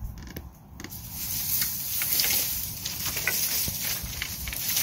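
Small clicks and knocks of a chainsaw being handled and turned over by hand with its engine off, over a steady high hiss.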